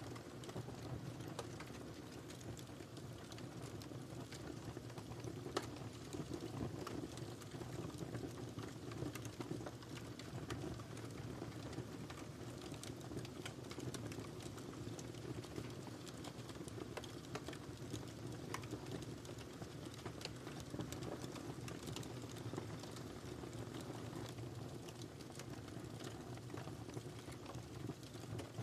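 Wood fire crackling in a fireplace: a steady low rumble and hiss with many small, irregular sharp pops and snaps.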